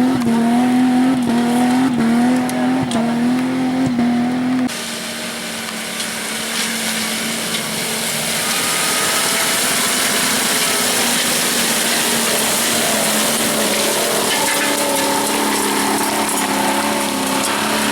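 Off-road 4x4 engine held at high revs, pedal to the floor, climbing a slope of loose stone, with sharp clicks of stones under the tyres. About five seconds in it cuts abruptly to another engine straining uphill amid a loud hiss of tyres on gravel.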